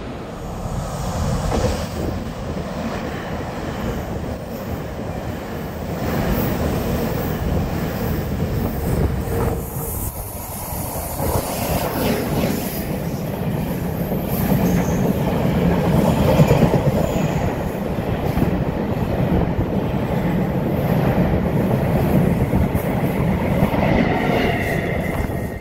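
Taiwan Railway electric trains running along a station platform close by: first an EMU900 commuter unit, then an E1000 push-pull express passing, its wheel and running noise louder in the second half before dropping off as the last car goes by.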